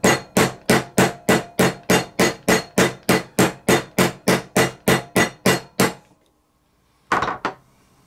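Fast, even hammer taps, about four a second, on a socket driving the outer ball bearing down into an RC car's transmission/diff case to seat it flush. The taps stop about six seconds in, and a short clatter follows about a second later.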